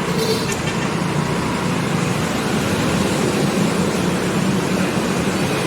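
Steady loud machine noise with a low engine-like hum.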